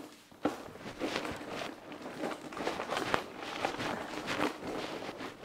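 Plastic food packets crinkling and rustling as they are handled and packed, in an irregular run of small crackles and taps.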